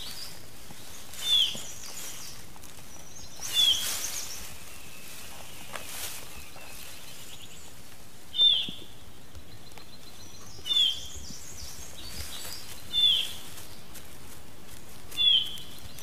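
A short, high call that swoops downward, repeated six times about two seconds apart with one longer pause midway, over a steady hiss of forest ambience.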